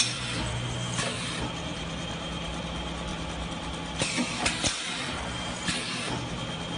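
JH21 pneumatic punching machine punching steel hinge strips: a steady machine hum, with sharp metal clanks of the punch strokes once about a second in, a quick cluster of four between four and five seconds in, and one more near six seconds.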